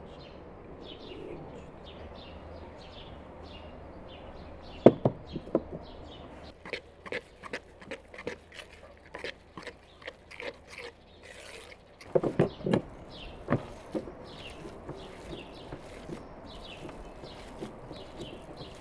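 A spoon knocking and scraping against a plastic bowl while minced meat and chopped herbs are stirred together: irregular clicks and knocks, the sharpest about five seconds in and again about twelve seconds in, dying away a couple of seconds later. Small birds chirp throughout.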